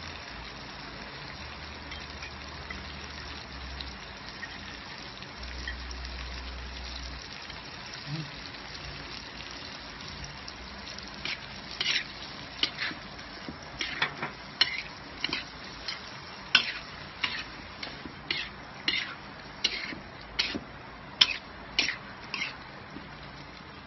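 Shrimp frying in a pan of butter, garlic and onion, with a steady sizzle. From about halfway on, a utensil scrapes and knocks against the pan in short quick strokes as the shrimp are stirred.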